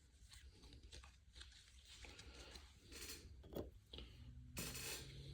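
Faint rustling and clicking of trading-card packaging and cards being handled, with a louder rustle near the end. A low steady hum comes in about four seconds in.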